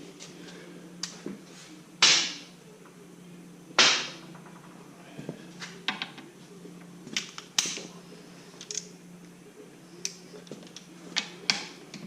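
Tools and metal parts knocked and handled while a Ford 9-inch third member's pinion is taken back out: two loud knocks about two and four seconds in, among scattered lighter clicks and taps, over a steady low hum.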